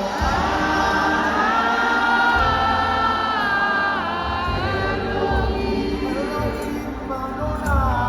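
A choir singing a slow gospel worship song, holding long notes that glide gently in pitch, over low instrumental accompaniment.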